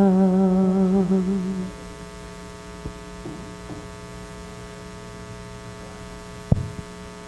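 The last sung note of a worship chorus, held with a slight waver, ends about a second and a half in. After it a steady electrical mains hum from the sound system remains, with one sharp thump near the end.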